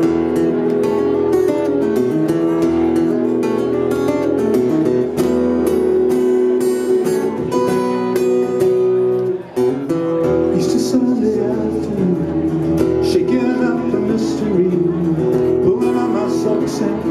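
Live solo acoustic guitar, strummed steadily, with a man's voice singing along into the microphone in the second half.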